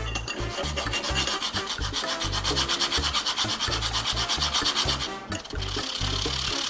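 Crustless white bread rubbed rapidly back and forth on a small metal hand grater, a fast, even rasping as it is reduced to crumbs. A short break about five seconds in, then a steadier rasp.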